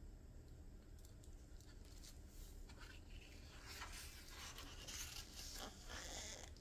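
A large page of an old hardbound yearbook being turned by gloved hands: faint paper rustling and crinkling with small ticks, starting about two seconds in and growing until the page settles near the end.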